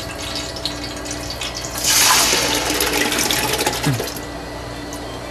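Tomatoes poured from a large tub into a hot stockpot of oil, a rushing splash and sizzle lasting about two seconds from near the middle, over a steady low kitchen hum.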